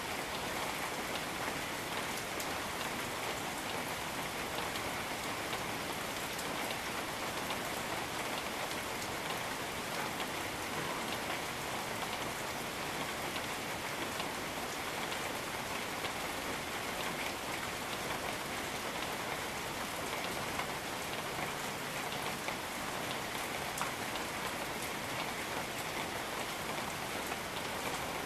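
Steady rain falling on rainforest foliage, an even hiss with separate nearby drops ticking here and there.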